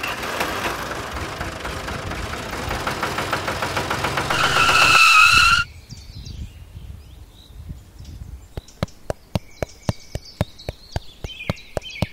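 Small motor of a miniature DIY toy tractor running with a fast rattling tick, growing louder and rising into a whine before cutting off suddenly about six seconds in. After that, a steady run of sharp clicks, two to three a second, with faint high chirps.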